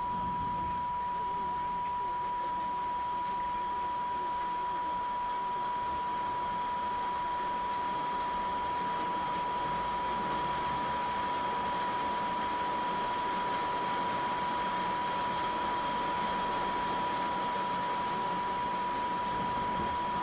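Steady 977 Hz sine tone, one unbroken pitch, over an even hiss of noise.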